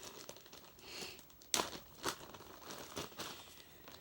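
Wrapping around a new vacuum flat belt crinkling and tearing as the belt is unpacked, with a couple of sharp clicks about a second and a half and two seconds in.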